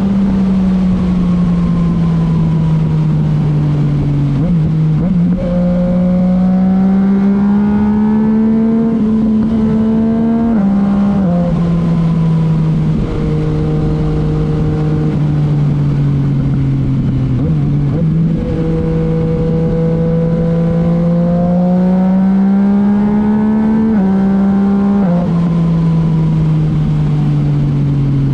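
Yamaha MT-09's three-cylinder engine through a titanium Akrapovic exhaust, rising slowly in pitch as it speeds up and falling as it slows. Its note drops suddenly at gear changes about ten seconds in and near the end, and jumps up around five and eighteen seconds in.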